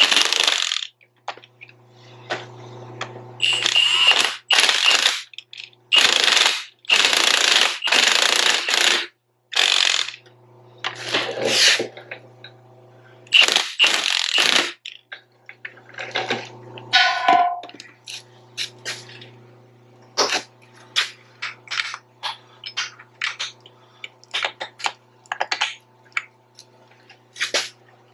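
Rattling bursts of a power tool working on fasteners, several in the first half, each lasting from under a second to about three seconds, followed by many short metallic clinks and knocks of tools on steel parts.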